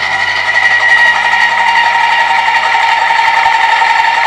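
Reber No. 3 400 W electric motor driving a pasta-extruder attachment, running with a steady high whine over a mechanical hum. The whine gets a little louder about a second in.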